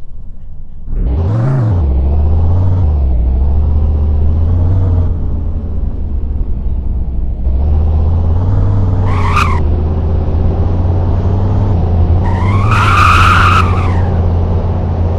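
Subaru Impreza engine sound: a quick rev about a second and a half in, then running steadily. A short squeal comes near ten seconds, and a longer tyre squeal around thirteen seconds.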